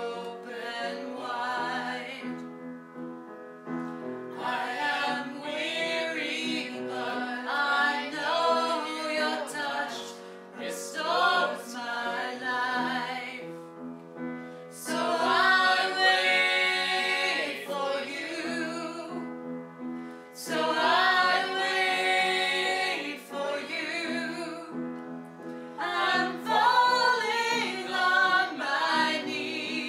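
A choir singing a hymn with sustained accompaniment, in phrases a few seconds long with short breaths between them.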